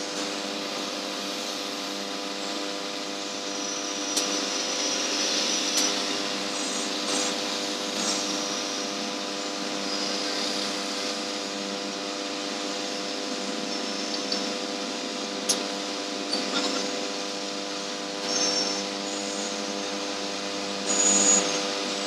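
Hot air rework station blower running steadily, a hum with a hiss on top, with a few light clicks as the circuit board is handled.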